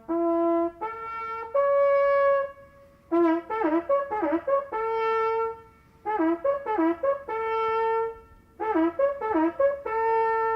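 Beagles baying on a track: a run of long, pitched howls at several different pitches, some held steady and some dropping in pitch at the end, as more than one hound gives voice in turn.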